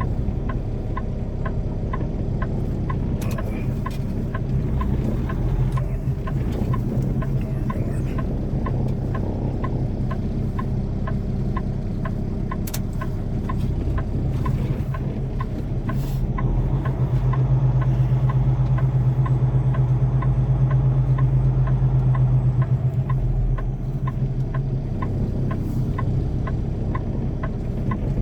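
Semi truck's diesel engine running as the tractor is driven slowly, its note getting louder for several seconds about two-thirds of the way through, then settling back. A light, regular ticking about twice a second runs alongside it.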